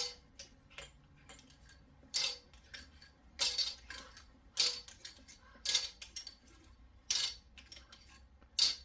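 Small metal engine parts being set down one at a time, making seven sharp metallic clinks about a second or so apart, each with a brief ring.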